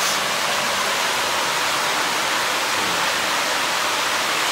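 Steady rushing, bubbling water in a koi sorting bowl, an even hiss with no breaks.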